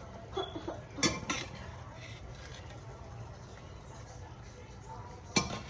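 A metal cooking utensil clinking against a frying pan: two clinks about a second in and a sharper one near the end, over a steady low hum.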